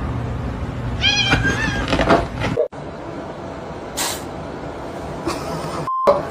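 A cat meowing: a pitched, bending call about a second in, followed by a shorter one.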